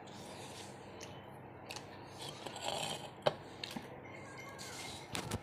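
Dry jowar bhakri (sorghum flatbread) being torn and broken by hand: crisp crackling with scattered sharp snaps and clicks.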